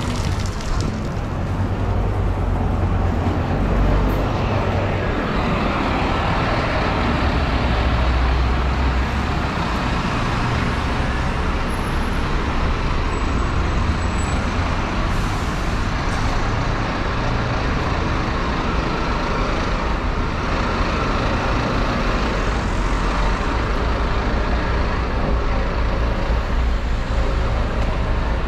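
City street traffic noise: motor vehicles running past in a steady wash of sound with a heavy low rumble, swelling briefly about four and eight seconds in.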